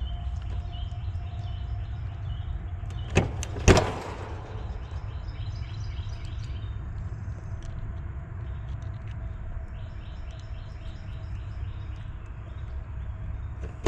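Two sharp metallic snaps about half a second apart, a few seconds in, as pliers work the wire terminals on an air-conditioner condenser's run capacitor. Under them runs a steady low rumble, with short high bird chirps repeating.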